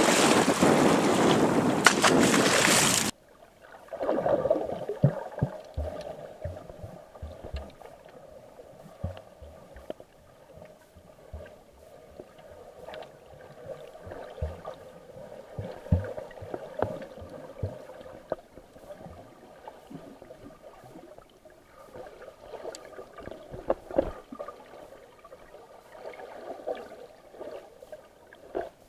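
Sea water washing and splashing over a concrete shore, loud and rushing, cutting off suddenly about three seconds in as the microphone goes underwater. After that, muffled underwater sound of moving sea water with a faint steady hum and scattered low thuds.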